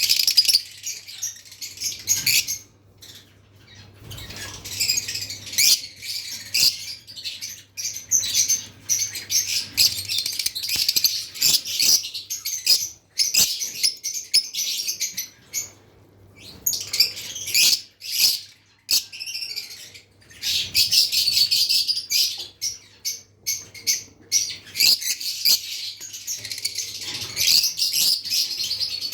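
Lovebirds chirping in rapid, high-pitched chatter, in bursts broken by short pauses.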